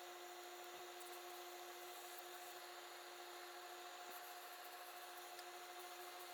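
Near silence: a faint, steady electrical hum over hiss, with a few faint ticks.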